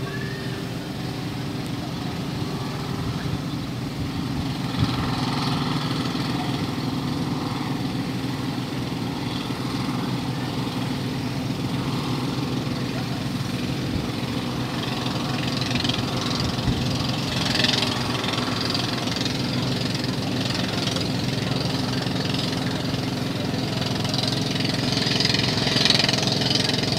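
Steady low drone of docked ships' diesel engines idling at the pier, with a fainter, higher hiss that swells a couple of times.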